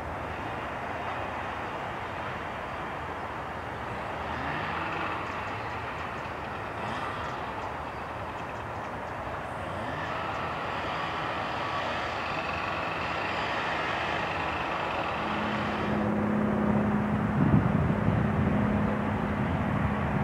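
Airbus H135 twin-turbine helicopter flying past, a steady turbine and rotor noise that grows louder as it comes closer. About fifteen seconds in a steady hum joins, and in the last few seconds a pulsing low rotor beat becomes the loudest part.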